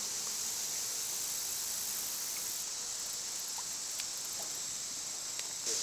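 Steady high-pitched insect drone, a summer chorus of crickets, with a few faint clicks near the end.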